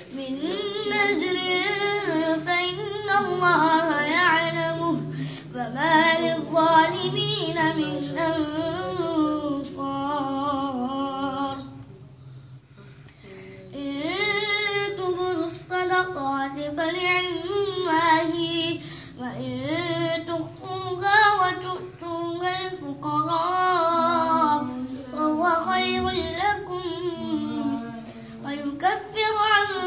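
A boy reciting the Quran in the melodic qirat style: long, drawn-out phrases whose pitch bends and ornaments, with a pause for breath about twelve seconds in.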